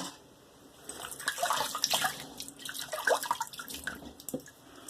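Face being rinsed at a bathroom sink: handfuls of warm water splashing irregularly, starting about a second in.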